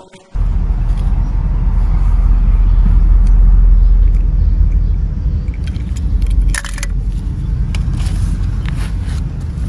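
Wind buffeting the microphone: a loud, steady low rumble that cuts in abruptly just after the start. Leaf rustling and handling clicks come in about two-thirds of the way through.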